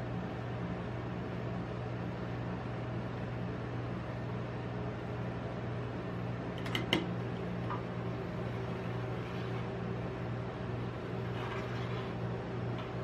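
Steady low hum of the rolled ice cream machine's refrigeration unit. A single sharp tap comes about seven seconds in, and a metal spatula scrapes faintly across the cold plate near the end.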